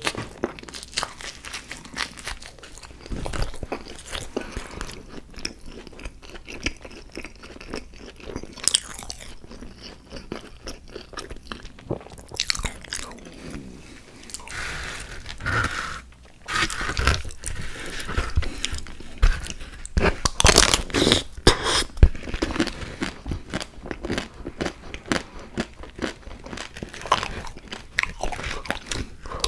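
Close-miked eating: repeated bites and chewing with crunching, for an eating-sounds show.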